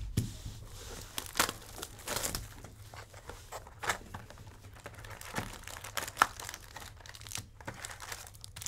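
Trading-card pack wrappers crinkling and tearing as packs are ripped open and handled, a run of short rustles and crackles.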